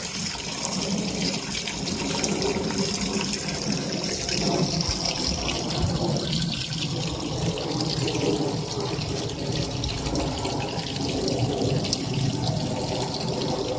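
Steady running and splashing water from a pump-fed barrel aquaponics system, water circulating through its jet and gravity drain.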